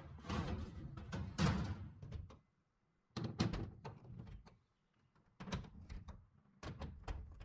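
Thin aluminum firewall panel being handled and fitted into place: a series of sheet-metal clunks, rattles and sharp clicks, with two short pauses.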